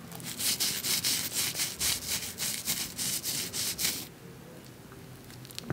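Rapid rhythmic rasping strokes, loud and hissy, for about four seconds, then stopping suddenly; a few light clicks follow near the end.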